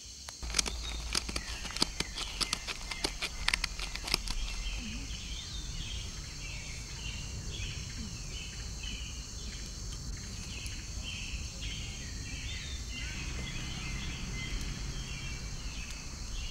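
Dry twigs snapping and crackling in a quick run of sharp clicks during the first few seconds as kindling is readied at a fire ring. After that come short high chirping calls repeating evenly for most of the rest, over a steady low wind rumble on the microphone.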